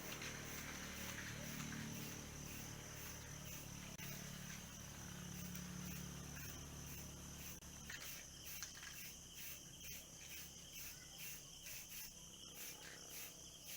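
Faint insect chirring, most likely crickets: a steady high trill that takes on a pulsing rhythm of about two beats a second partway through, over a low background hum.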